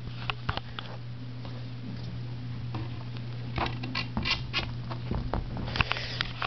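Handling noise of a lightsaber hilt and blade: light clicks and small scrapes, bunched about three and a half seconds in and again near the end, over a steady low hum.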